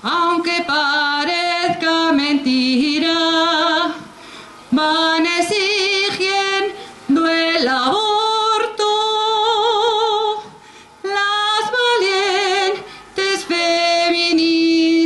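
A woman's solo voice singing a jota with no instruments, in long held notes with a wide vibrato. The notes come in several phrases with short breaks between them, and the last note is held long.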